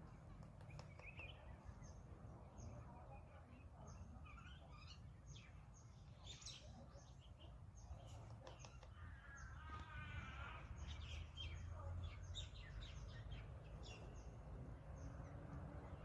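Faint outdoor birdsong: many short chirps and calls from small birds, with a brief run of repeated notes about nine seconds in, over a steady low background rumble.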